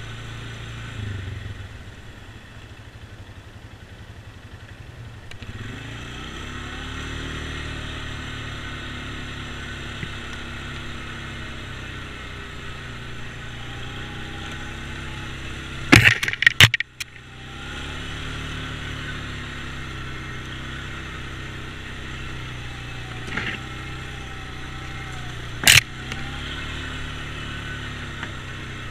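ATV engine running under way on a rough forest trail, its pitch stepping up a few seconds in and then rising and falling with the throttle. A quick cluster of loud, sharp knocks comes about sixteen seconds in, and a single loud knock near the end.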